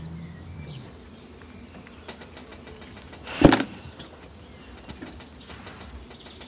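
Quiet background with a low hum at the start, a few small clicks, and a single short thump about halfway through.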